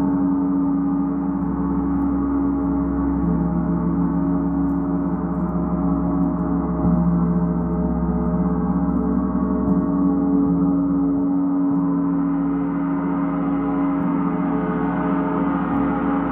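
Large hanging gong played continuously with a soft felt-headed mallet, building a steady, dense wash of many overlapping sustained tones, deepest notes strongest, with no sharp individual strikes standing out.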